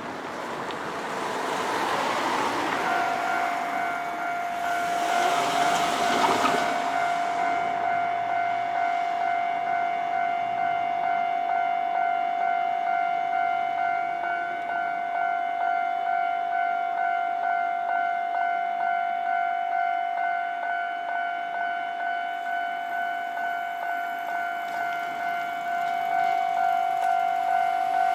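Japanese railway level-crossing warning bell sounding about three seconds in: an electronic clanging tone repeating at a steady pace of about one and a half strikes a second, warning of an approaching train, with a second, slightly higher bell tone joining near the end. Before the bell sets in, a rushing noise swells and dies away over the first several seconds.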